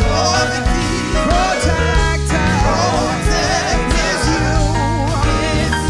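Gospel praise team singing: a lead singer with backing vocalists over a live band with keyboard and a strong bass line.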